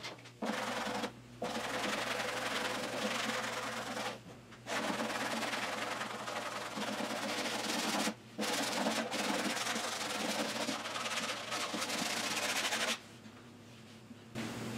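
Hand sanding of a primed steel car door with a long sanding block: steady back-and-forth scraping in long runs, with short pauses about a second, four and eight seconds in and a longer one near the end. The sanding brings out the high spots in the panel.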